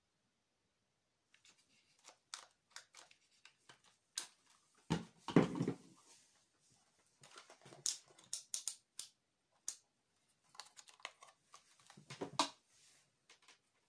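Handling noises: scattered plastic clicks and knocks as an 18 V cordless drill battery pack and the drill are set down on a wooden table, with a heavier thud about five seconds in. Near the end a multimeter and its test leads are handled, with another knock about twelve seconds in.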